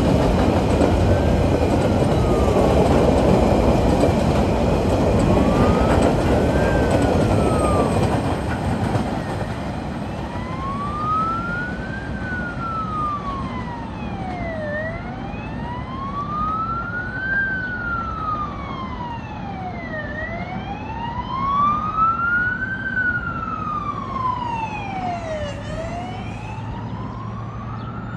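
A freight train's empty wagons rumble along the rails, loud at first and fading after about eight seconds as the train draws away. A siren wails slowly up and down, each rise and fall taking about five seconds, and becomes the main sound once the rumble fades.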